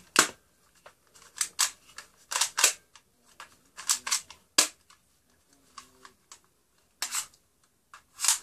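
Cheap plastic Spy Mission toy Beretta BB pistol being cocked and fired again and again: about ten short, sharp plastic snaps, several in quick pairs.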